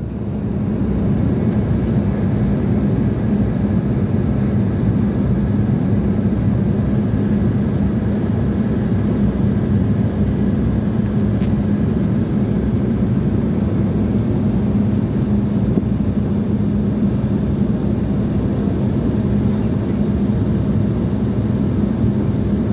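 Steady cabin noise of a jet airliner in cruise: the rush of airflow and the turbofan engines, with a steady low hum.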